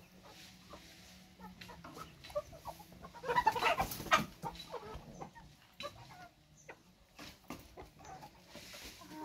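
Domestic chickens clucking, with a louder flurry of calls about three to four seconds in.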